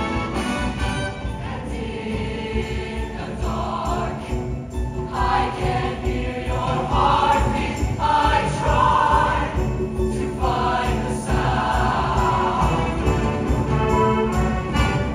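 Mixed show choir singing with a live band, over a steady beat. The voices come forward from about four seconds in.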